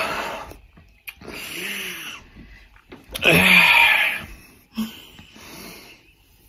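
A man gagging and retching in several loud, breathy bursts after a mouthful of stout.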